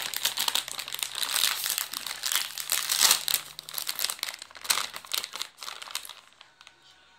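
A foil-lined plastic snack bag being pulled open and handled, crinkling and crackling continuously. The crinkling is loud for about six seconds, then dies away.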